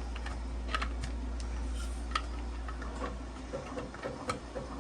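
Light plastic clicks and taps as small parts are handled and pressed into a 3D-printed plastic parts box: a handful of scattered sharp clicks over a steady low hum.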